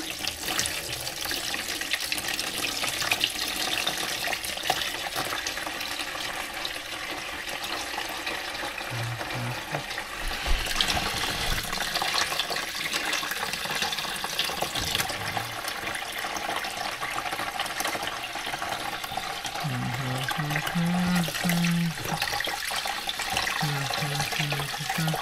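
Kitchen tap running steadily into a stainless steel sink, the water splashing through and over a small glass coolant level gauge held under it to rinse out sludge.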